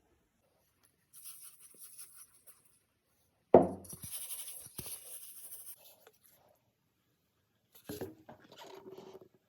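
Kitchen utensils and dishes being handled: three stretches of scratching and clinking. The middle one opens with a loud knock about three and a half seconds in.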